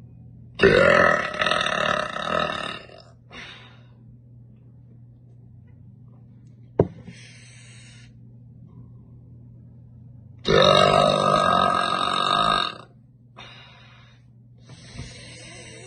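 Two long, loud, bassy burps from a woman, each about two seconds: one just after the start and another about ten seconds later, with short faint sounds and a single sharp click in between.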